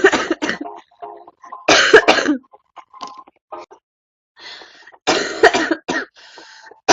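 A girl coughing in three short fits: one at the start, one about two seconds in, and one about five seconds in.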